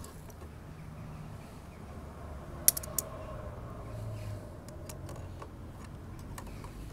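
Sharp metallic clicks from a handheld steel vernier caliper being handled and set against a motorcycle brake disc: one loud click a little before halfway, two fainter ones right after, then a few faint ticks, over a quiet background.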